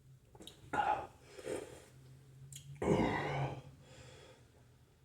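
A man belching after shotgunning a 24-ounce can of carbonated drink: a short gasp or grunt about a second in, then a long, loud belch about three seconds in.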